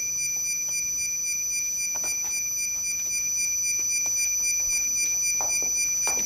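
Steady high-pitched whine, with a few faint knocks and footsteps scattered through it.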